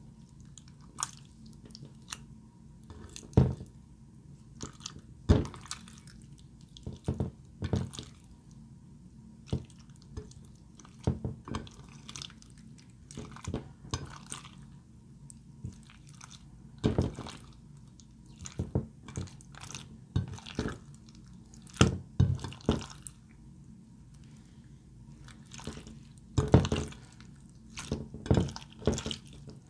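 Slime being worked by hand, giving irregular sticky pops, clicks and crackles as it is squished, folded and stretched.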